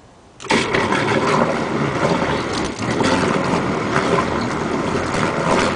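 Salvaged LectraSan macerator electric motor driving a Kasco de-icer propeller in a bucket of water: it starts suddenly about half a second in and runs steadily, the propeller churning and splashing the water loudly. It pulls hard, spinning fast.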